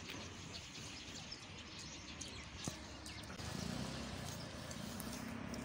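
Open-air ambience with birds chirping; about three and a half seconds in, a vehicle engine's low running rumble sets in and grows louder.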